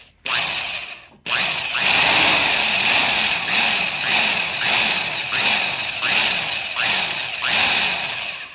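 Power drill boring into a wooden rifle stock: a short run, then a longer steady run about a second in, the motor's pitch rising and dipping in a regular cycle about every three-quarters of a second as the bit is worked in the hole. The hole is being widened and steered to correct a screw hole that has wandered off straight.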